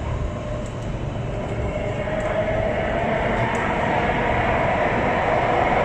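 Alstom Metropolis C751A metro train pulling away and gaining speed, heard from inside the car. A traction-motor whine comes in about two seconds in and climbs slightly in pitch, over a low rumble of wheels on rail that grows steadily louder.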